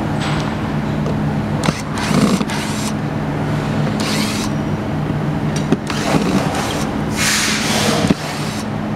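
Hand-held power screwdriver running in several short bursts with a hiss, driving screws into the plastic hub plate of a spring-loaded hose reel, the longest burst near the end, over a steady low machine hum.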